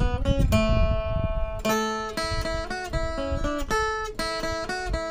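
Background music: an acoustic guitar picking a melody of plucked notes.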